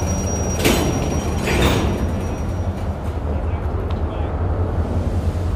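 Steady low engine rumble, with two short noisy bursts about half a second and a second and a half in, the second mixed with a brief muffled voice.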